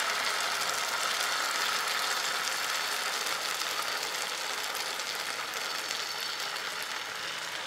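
Wheat-flour vegetable chilla batter sizzling steadily in a little oil on a hot nonstick tawa, gradually getting quieter.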